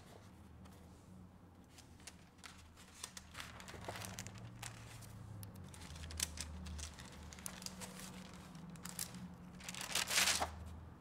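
Paper rustling and crinkling as the stiff pages of a photo album are turned by hand, with small clicks as the pages are handled; the loudest page turn comes near the end.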